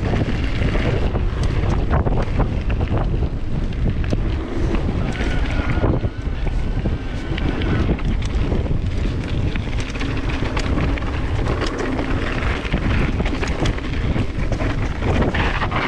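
Wind buffeting an action camera's microphone while an e-mountain bike rolls along a dirt singletrack, with steady tyre rumble and frequent clicks and rattles from the bike over the rough ground.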